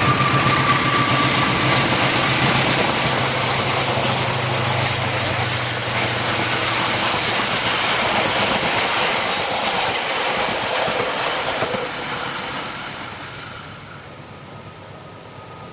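Passenger train carriages rolling past on a curved track: a steady rumble of wheels on rail with a thin high squeal from the wheels. The locomotive's low engine hum fades a few seconds in, and the whole sound dies away about twelve to fourteen seconds in as the last coach goes by.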